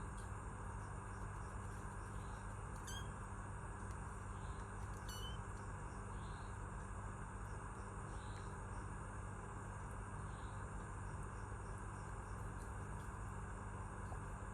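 Steady background hiss and low hum with faint insect chirps repeating about every two seconds, and two short higher chirps about three and five seconds in. No kitten meows are heard.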